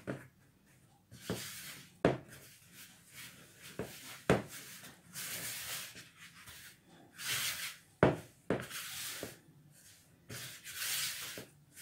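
Silicone spatula scraping and stirring flour into a stiffening sweet shortcrust dough in a plastic mixing bowl, in repeated scraping strokes a second or two long, with a few sharp knocks.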